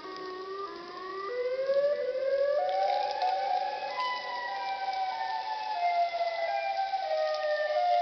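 Chicago's outdoor tornado warning siren sounding its variable 'seek shelter now' tone. It wails in several overlapping tones whose pitch climbs in steps to a peak about four seconds in, then steps back down.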